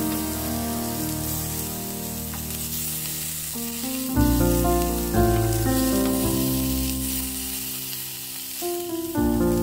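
Minced-chicken sate buntel on lemongrass sticks sizzling in a little oil on a nonstick grill pan, with a steady hiss. Background piano music plays over it and grows louder about four seconds in.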